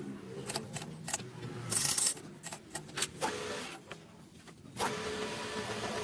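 Workshop handling noises: a scatter of sharp clicks and knocks from metal tools, with a brief hiss about two seconds in. A steadier sound with a few held tones comes in near the end.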